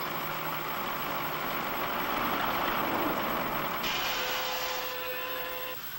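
Earthmoving scraper's engine running steadily. About four seconds in a hiss joins with a faint steady whine, and the sound drops off just before the end.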